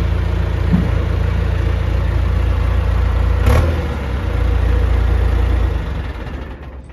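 John Deere 310SE backhoe's turbocharged diesel engine running hard, with one sharp clank about three and a half seconds in. The engine sound drops away near the end.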